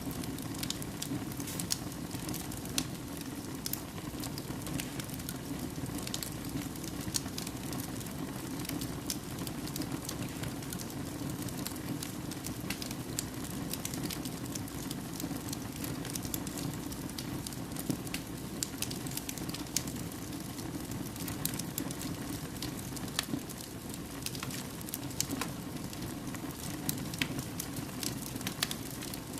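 Wood fire burning in a fireplace, crackling and popping irregularly over a steady low rush of flame.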